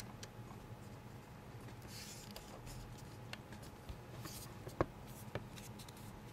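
Plastic clips of a Samsung Galaxy S3's inner back case clicking into place as thumbs press around its edges: a few faint, sharp clicks and brief rubbing of fingers on the plastic, over a low steady hum.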